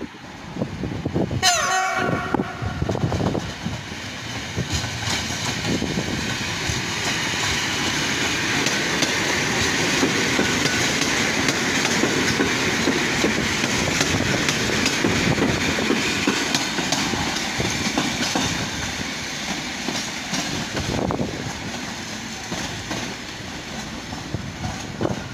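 An EN57 electric multiple unit gives a short horn blast about a second and a half in, then passes close by. The wheels clatter over the rail joints and points, the noise building to a peak in the middle and easing off as it moves away.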